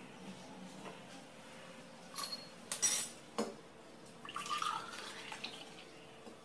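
A metal pot clinking against a drinking glass, then milk poured from the pot into the glass with a short splashing fill.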